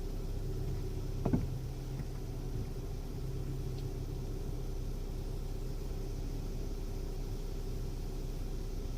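2016 Honda Civic running with a steady low hum, with one short rattle about a second in and a couple of faint ticks after it: the rattle the owner is trying to track down.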